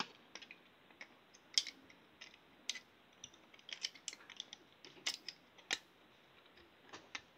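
Scattered, irregular light clicks and taps of small plastic parts being handled and fitted together as a plug-in night light's casing is put back together.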